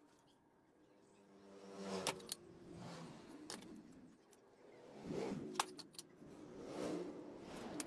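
A small electric power-tool motor whirring up and falling away in short repeated bursts, with a few sharp clicks and taps between them.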